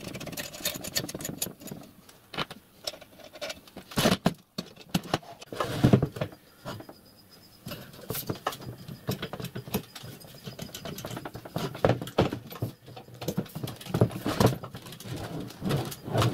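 Workshop handling noise: irregular clicks, clinks and knocks of metal parts as wheels, axles and spring suspension units are fitted to a small metal riding-car frame and the frame is shifted about on the bench, with a few louder knocks now and then.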